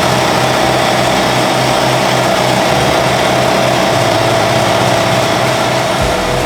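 Toros ZA65-100 3 hp single-phase air compressor running, a loud steady mechanical drone. A deeper rumble joins near the end.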